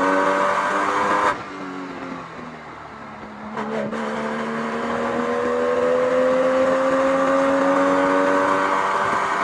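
Porsche 996's 3.6-litre M96 flat-six engine pulling under acceleration, its pitch rising steadily. About a second in it drops off sharply and sags lower, then after a click it pulls up again, climbing in pitch.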